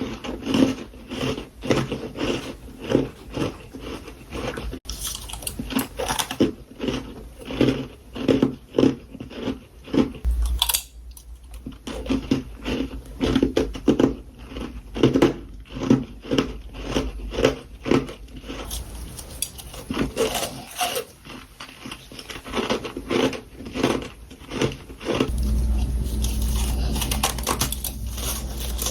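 Close-up crunching as a person bites and chews powdery freezer frost, a quick run of crisp crunches a few times a second. A deep steady hum sits underneath in two stretches, the second near the end.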